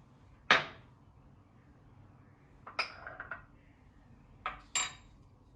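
A spoon clinking against a bowl while spices are measured in: one sharp clink about half a second in, then a quick run of three lighter clinks and two more near the end.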